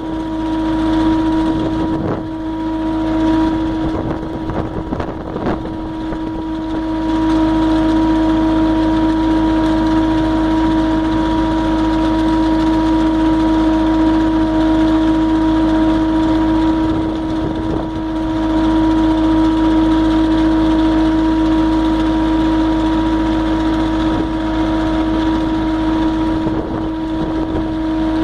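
MultiOne mini loader's engine and hydraulics running steadily under load, driving a finger bar hedge cutter, with a constant droning tone. A few sharp knocks come in the first several seconds.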